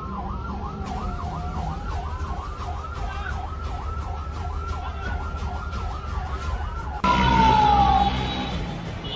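Emergency vehicle sirens: one in a fast yelp, cycling about three times a second, overlapping a slower rising-and-falling wail, over a low rumble. About seven seconds in, a louder siren tone slides down in pitch.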